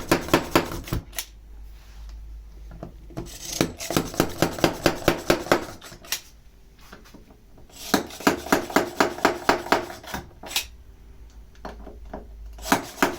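Stanley Yankee spiral ratchet screwdriver being pumped fast to drive screws into wood: quick runs of sharp metallic clacks, about four or five a second. They come in a few bursts of two to three seconds, with short pauses between as each new screw is started.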